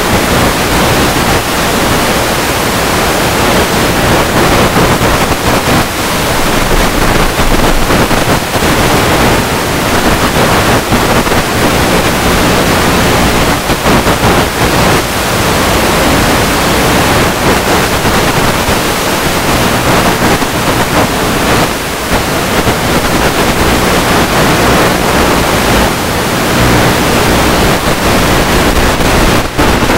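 Loud, steady rushing of wind over the microphone of an onboard camera on a Multiplex EasyStar 2 RC plane in flight, with a few brief dips.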